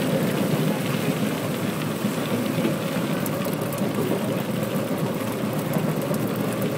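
Steady low rumble of a Singapore MRT train running at speed along the track, heard from inside the carriage.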